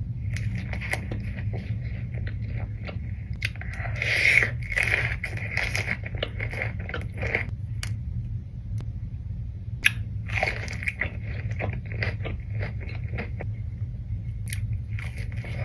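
Close-miked bites and chewing of crispy fried chicken tenders: loud crunches in several bouts, with wet chewing between, over a steady low hum.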